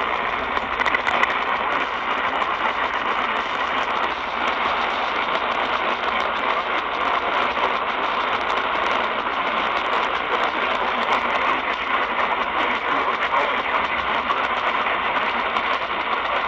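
Steady radio static: an even hiss, narrowed to the thin sound of a weak radio signal, with no clear voice coming through.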